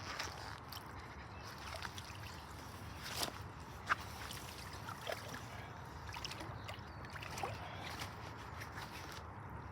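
Water sloshing and trickling as a carp is let go from a wet weigh sling into the lake, with a few small splashes, the sharpest about four seconds in.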